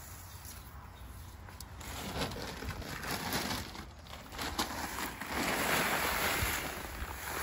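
Dry clay soil poured from a paper bag into a wheelbarrow: a rushing, pattering pour about five seconds in, after a few seconds of rustling and handling of the bag.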